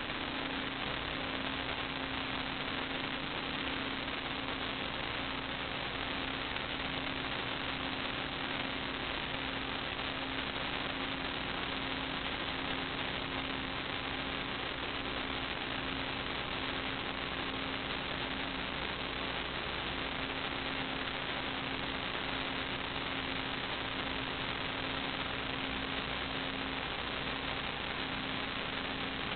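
Steady electrical hiss with a low, even hum, unchanging throughout: the noise floor of the sewer inspection camera's recording system, with no other sound.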